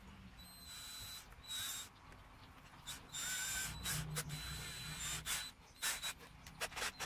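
Cordless drill running in several short bursts, its bit working through a leather strap into a wooden shield board, with a thin high whine in each burst.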